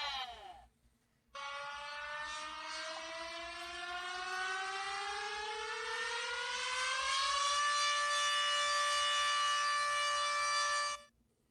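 Emergency alert siren tone played in reverse. A falling siren note dies away in the first second. After a short gap a second many-toned siren note starts abruptly, rises slowly in pitch for several seconds, holds steady, and cuts off sharply near the end.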